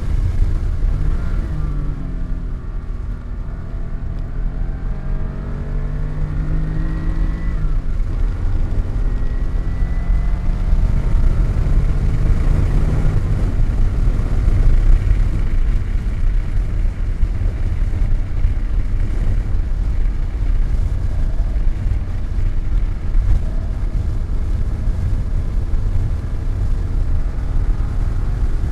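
Car engine accelerating on a race track, its pitch rising, dropping at a gear change about seven and a half seconds in, then rising again, over a heavy low rumble.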